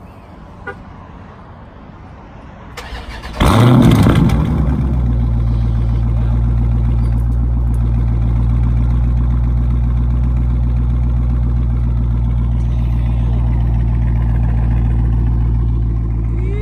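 2019 Dodge Charger Scat Pack's 6.4-litre HEMI V8 with its mufflers deleted, started up: a brief crank about three seconds in, a loud flare of revs on catching, then a steady, deep idle.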